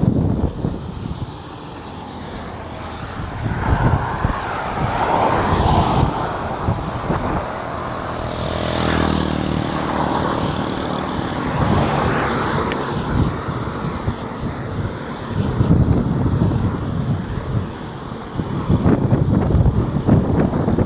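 Motor vehicles passing on a highway one after another, the loudest pass about nine seconds in; wind buffets the microphone.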